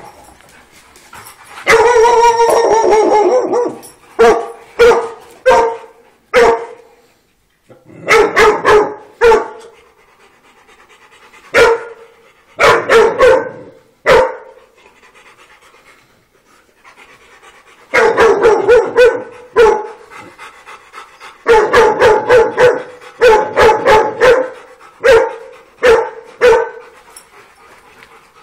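Dog barking during play, in repeated bursts of a few barks each with short quiet gaps, and a longer unbroken run of barking about two seconds in.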